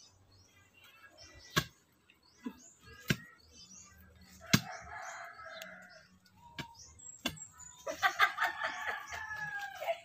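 A rooster crowing loudly near the end, after a shorter crow about halfway through, with small birds chirping. Several sharp knocks a second or two apart from a digging bar striking the soil around a yam tuber.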